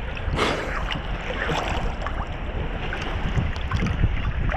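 Sea water splashing and sloshing close to the microphone in irregular bursts, with wind buffeting the microphone.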